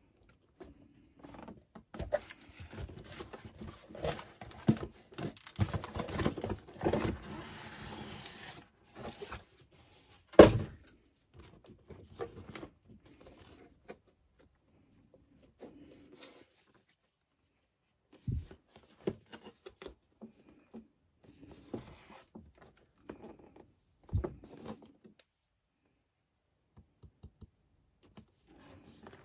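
Cardboard packaging being handled: several seconds of rustling and crinkling, one loud thump about ten seconds in, then scattered knocks and rustles as the box is lifted and turned over.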